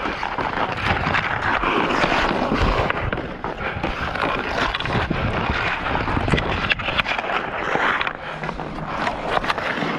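Hockey skates scraping and carving across snow-covered outdoor ice in a steady hiss, broken by sharp clacks of a hockey stick on the puck.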